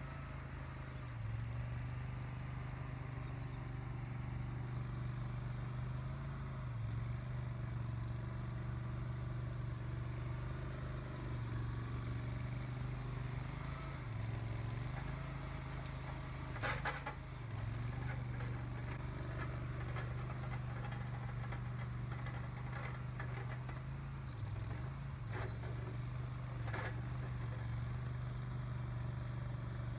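Boxer 427 mini skid steer's engine running steadily, its pitch dipping briefly several times as it takes load. A few short knocks are heard, one a little past halfway and two more near the end.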